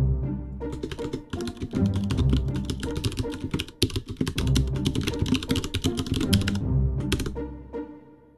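Rapid computer keyboard typing, a dense run of key clicks, over background music with low sustained notes; both fade out near the end.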